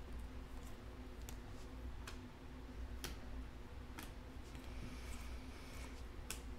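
2020 Panini Mosaic football cards clicking as they are slid and flicked one by one through a hand-held stack, a sharp tick every second or so, over a faint steady low hum.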